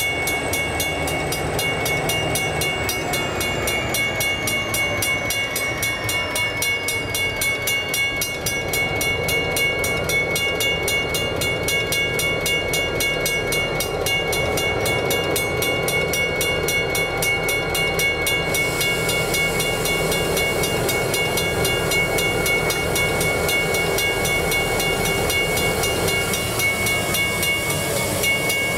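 Level-crossing warning bells ringing steadily with a fast, even beat while the crossing is active, over the rumble of an approaching diesel freight locomotive that reaches the crossing near the end.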